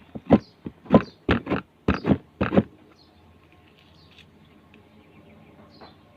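Sticky homemade glue slime squelching and popping as it is worked by hand, with about eight sharp wet pops in the first couple of seconds, then only faint handling noise.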